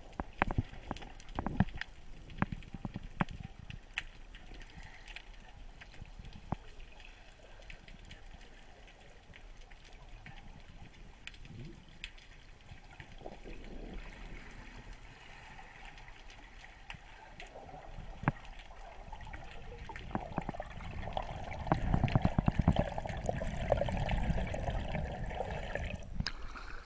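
Muffled underwater sound recorded through an action camera's waterproof housing: scattered sharp clicks over faint water noise. About 21 seconds in it grows louder, with a low rush and bubbling as the camera nears the surface.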